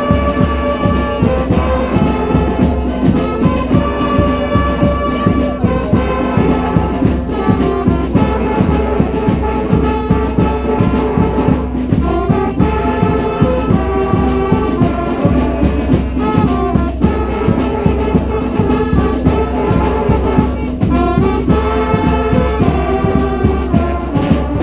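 Brass street band playing a cumbia: trumpets, trombones and saxophones over a steady beat. The music stops abruptly at the very end.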